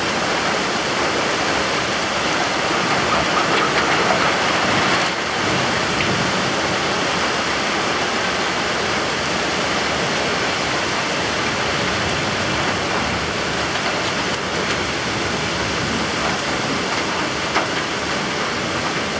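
Heavy rain pouring down in a thunderstorm: a dense, steady hiss that swells briefly a few seconds in.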